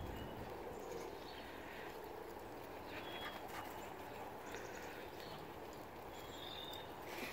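Outdoor ambience: a steady low hiss with three faint, short, high-pitched chirps, near the start, about three seconds in and near the end.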